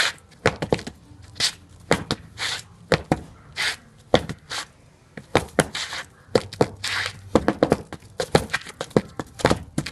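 Improvised rhythmic percussion: quick runs of sharp taps and knocks, broken every second or so by short scraping or brushing sweeps.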